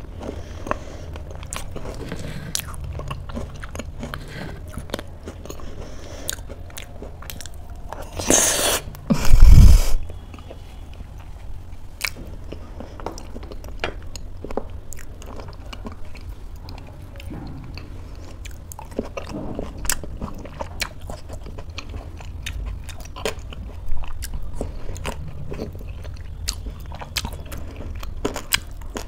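Close-miked chewing and crunching of oatmeal topped with almonds and Oreo cookies, with many small crisp clicks. About eight to ten seconds in there is a brief, loud bump that stands out above the chewing.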